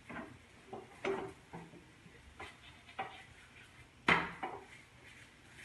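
A spatula knocks and scrapes against a frying pan as a paratha is oiled and turned over. It is a string of short clatters, the loudest about four seconds in, when the paratha is flipped.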